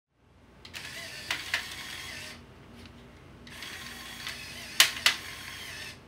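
Small Lego motor mechanism whirring in two spells of about two seconds each, with sharp clicks during each spell; the loudest pair of clicks comes near the end.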